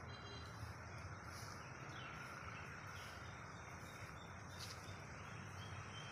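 Faint outdoor ambience: a steady low hiss and hum, with a few faint bird chirps.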